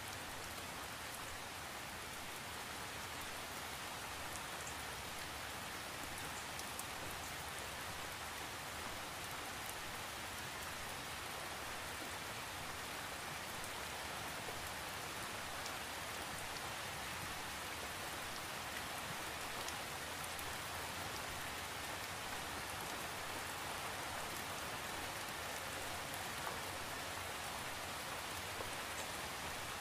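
Steady rain falling: an even hiss with faint, scattered drop ticks.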